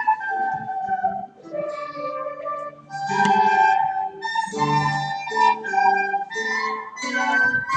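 Four children playing a tune together on plastic descant recorders, a sequence of held notes changing every half second or so, with lower accompanying notes underneath.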